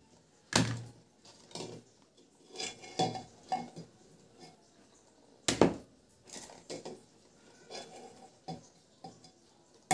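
Irregular clunks and knocks of hard-boiled eggs and hands against an aluminium pressure cooker pot and a plastic bowl as the eggs are lifted out one by one. The loudest knocks come about half a second in and about halfway through.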